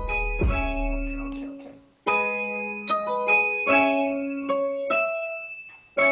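Piano-like keyboard sound playing a slow line of sustained chords and single notes, each ringing and fading, with a deep bass note under the first second and a half and a short break about two seconds in.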